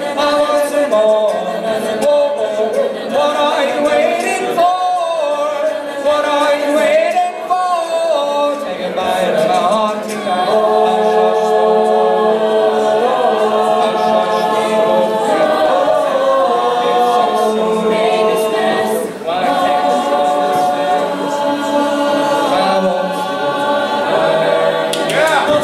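Mixed a cappella vocal group singing in close harmony, with the voices holding long chords through the middle and a short break about three-quarters of the way through.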